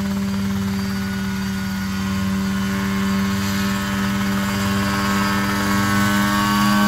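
Mosquito ultralight helicopter hovering low, its engine and rotor running steadily, slowly getting louder toward the end as it turns in the hover.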